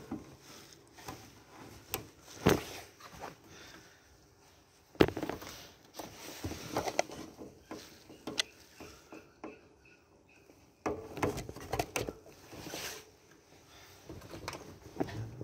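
Plastic power-cable connectors and cables being handled at a modular computer power supply: scattered clicks and knocks with cable rustle in between.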